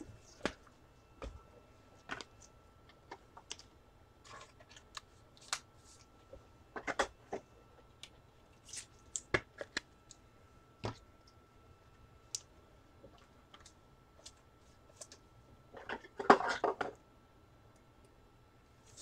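Scattered clicks and taps of computer keyboard keys, with a denser flurry of them about 16 seconds in, over a faint steady tone.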